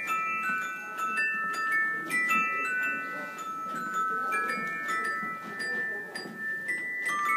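A slow melody of high, bell-like notes, struck about two a second, each ringing on under the next, over a soft low background noise.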